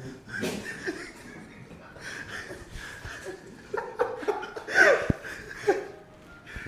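A person chuckling and laughing in short bursts, loudest just before five seconds in, with a brief low thump about five seconds in.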